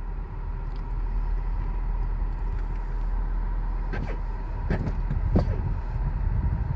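Car driving, with a steady low road and engine rumble and a faint steady whine. A few sharp knocks come about four to five and a half seconds in.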